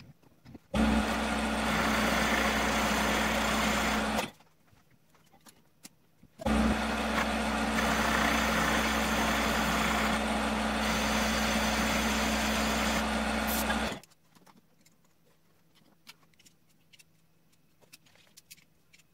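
Metal lathe running while turning down a cast iron slug to diameter: a steady motor and gear hum with cutting noise, in two runs of about three and a half and seven and a half seconds that each stop abruptly, with near-silent pauses between and after.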